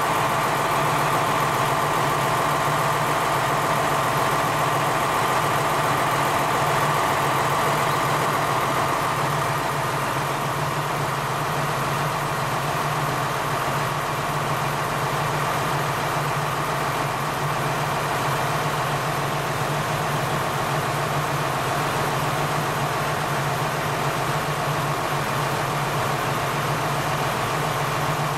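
KiHa 47 diesel railcar engine idling at a standstill, a steady drone that eases off slightly about a third of the way in.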